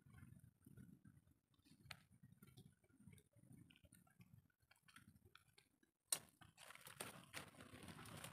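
Near silence with scattered faint clicks. About six seconds in, a sharp click, then a louder run of small clinks and rustle as gathered seashells are handled in a plastic tub.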